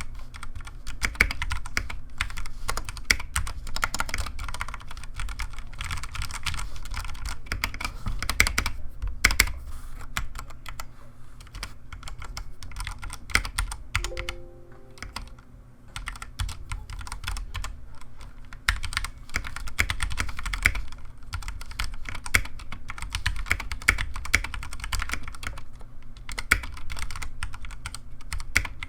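Typing on a Ducky One 2 Mini mechanical keyboard with Cherry MX Silver linear switches: a rapid, continuous run of key clacks as a sound test, easing off briefly about halfway through before picking up again.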